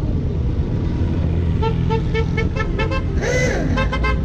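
Car horns beeping in a quick run of short toots, speeding up as they go and broken by a longer warbling note about three seconds in, over the steady engine and road rumble of a car on the move.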